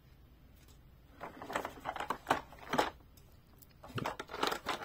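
Plastic parts of a Matchbox Action Drivers Transforming Excavator toy being handled: light clicks, knocks and rustles in a few short clusters after a quiet first second.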